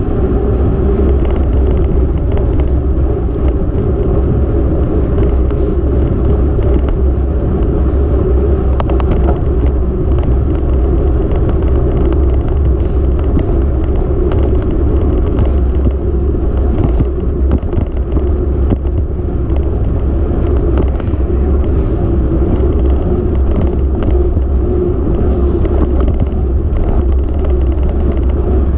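Steady rush of wind buffeting the microphone of a camera moving along an asphalt road, with road noise underneath; no engine note stands out.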